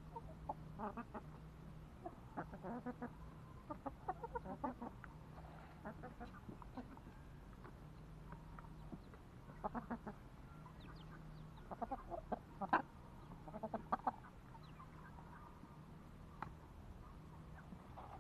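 Domestic chickens clucking in short, irregular runs of clucks, busiest around ten and thirteen seconds in.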